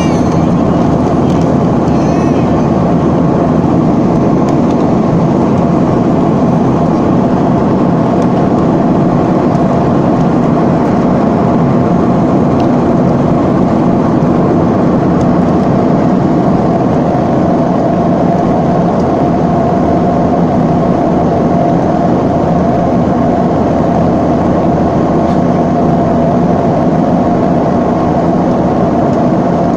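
Steady cabin noise of a Boeing 737-300 in flight: the CFM56 turbofans and rushing airflow make a loud, even roar with a constant whine, heard from inside the cabin at a window seat.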